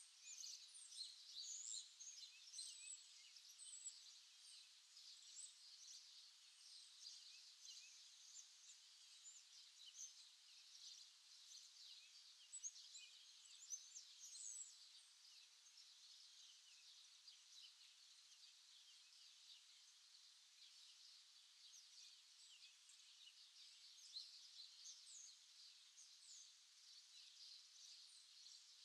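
Faint birdsong: many small birds chirping and twittering at once, a continuous woodland chorus over a light hiss.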